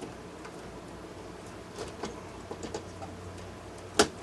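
Scattered light clicks and taps from handling the docking station's plastic and cast-aluminium parts during disassembly, with one sharp knock near the end.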